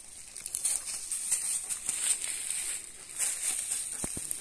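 A wolfdog pawing and biting at rotten wood in a hollow tree base: irregular scratching, crunching and crackling of crumbling wood and debris, with two short knocks about four seconds in. A steady high hiss lies underneath.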